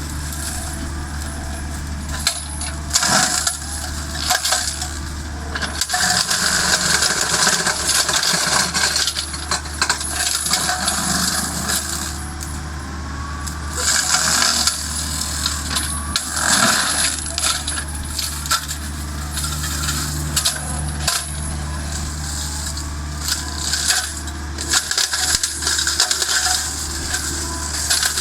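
Excavator-mounted hydraulic flail mulching head shredding brush: a steady low machine drone under irregular crackling and clattering as the hammer rotor smashes wood and throws debris, swelling and easing every few seconds.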